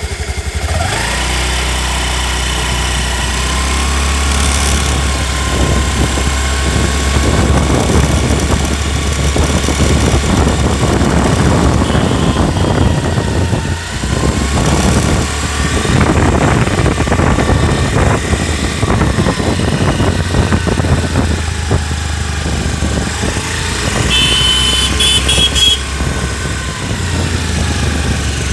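Honda Activa 125 BS6 scooter being ridden: the engine and drivetrain run with a whine that rises and falls with speed, mixed with a constant rattling from the lower body. The owner takes this rattle for a build-quality fault and suspects the kick-start lever knocking against the stand.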